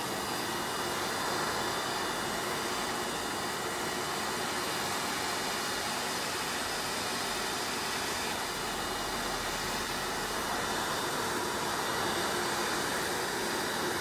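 Vorwerk Kobold vacuum cleaner running steadily at a raised power setting: a constant rushing air noise with a faint high whine, its narrow nozzle sucking dust off an air-conditioner grille.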